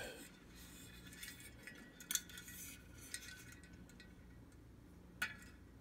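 Small metal weather vane turned by hand on its pivot bearing: a few light metal clicks and clinks, with a short rattle about two seconds in. The bearing is binding rather than spinning freely.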